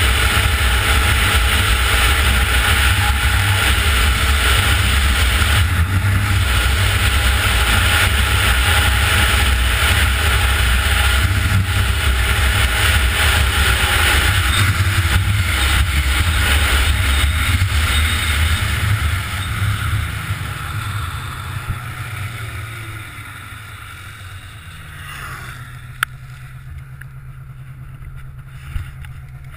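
Arctic Cat snowmobile engine running at speed, with wind rushing over the microphone. From about halfway through its pitch falls steadily as the sled slows, and it settles to a quieter, steady idle near the end.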